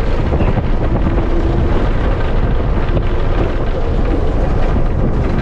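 Loud steady vehicle rumble with wind buffeting the microphone, typical of riding in a bus on the highway.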